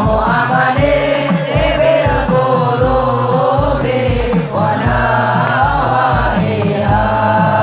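Music with a singing voice over a regular low drum beat.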